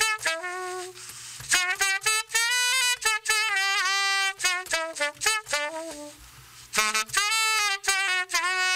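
Tenor saxophone playing a solo melody of held and quicker notes, pausing briefly about a second in and again past the middle.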